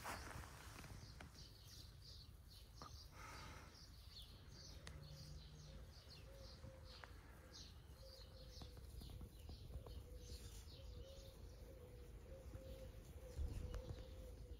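Faint outdoor ambience: small birds chirping repeatedly in the background over a low rumble, with a faint steady hum joining about a third of the way in and a low bump near the end.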